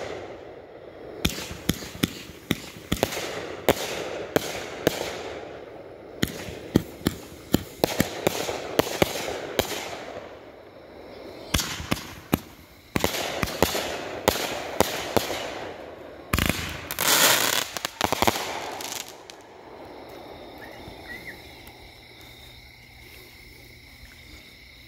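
Consumer fireworks cakes firing: a quick succession of launch thumps and bursting breaks, with a denser, louder barrage about two-thirds of the way through. The firing dies away near the end, leaving a faint steady background.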